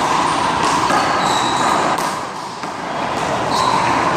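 A one-wall handball rally: three sharp smacks of the rubber ball being hit and striking the wall or court, about a second and a half apart, over steady background noise.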